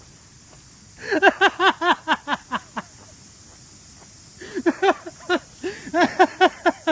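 A man laughing hysterically in an uncontrollable fit, rapid ha-ha pulses about five a second. The first run starts about a second in and lasts two seconds, and a second run starts near the middle and goes on to the end.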